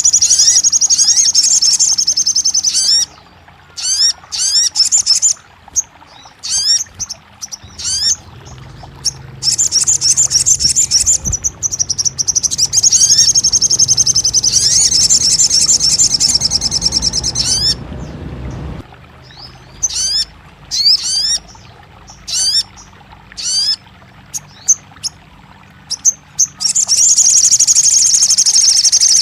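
Sogon bird singing: long, rapid high-pitched trills broken up by short, separate rising chirps.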